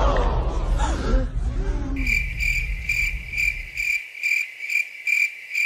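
Music fading out, then a cricket-chirping sound effect: a steady high chirp pulsing about two to three times a second, which cuts off abruptly. It is the comic 'crickets' gag for an awkward silence.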